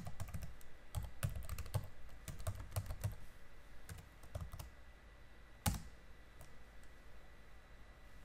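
Computer keyboard typing: a quick run of keystrokes for about the first four and a half seconds, then one louder keystroke about five and a half seconds in, the Enter key that runs the typed command.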